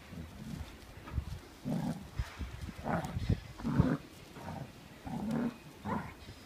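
Two dogs play-fighting, growling in a string of short, rough bursts, with the loudest growls in the middle.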